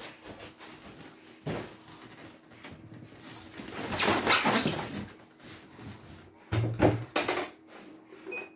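Packing material rustling and scraping as an embroidery machine is unpacked, followed by a few knocks and a thud as the machine is set down on a wooden workbench.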